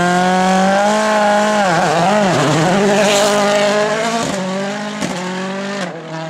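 Ford Fiesta WRC rally car's 1.6-litre turbocharged four-cylinder engine running hard at high revs. The pitch dips and climbs again as the driver lifts and gets back on the throttle, then the sound fades as the car moves away.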